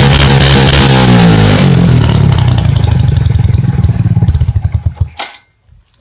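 A moped's two-stroke engine, breathing through an opened-up Honda Biz exhaust, runs loud and high, then falls back in revs. It settles into an uneven, pulsing run and cuts off abruptly about five seconds in.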